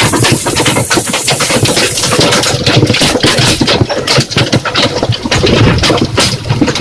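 Large hailstones pelting down in a dense, irregular clatter of rapid impacts over a steady rushing noise.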